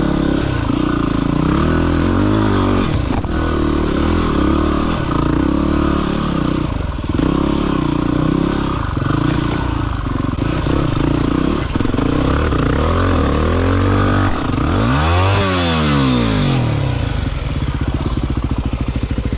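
Single-cylinder dirt bike engine revved up and down again and again as the rider works a bike wedged on a steep slope. There is one big rev up and back down about fifteen seconds in.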